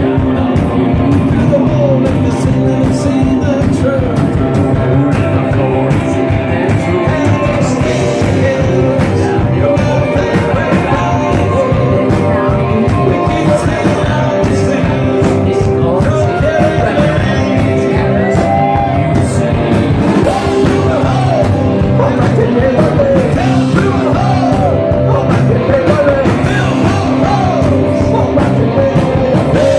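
A live rock band playing loudly, with a man singing into a microphone over the band; the singing stands out more in the second half.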